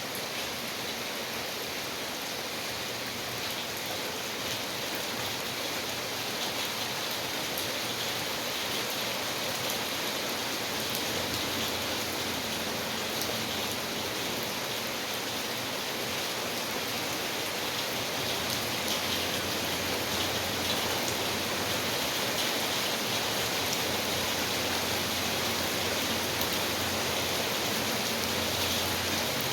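Steady rain falling, an even hiss with fine patter of drops on surfaces.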